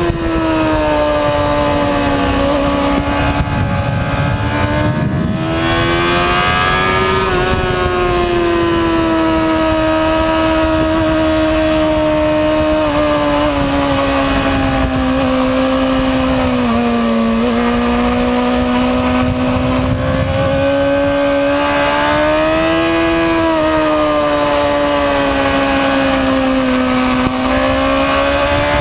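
Sport motorcycle engine heard from on board at track speed, held at high revs with its pitch rising and falling slowly as the bike accelerates and eases through corners, over steady wind rush.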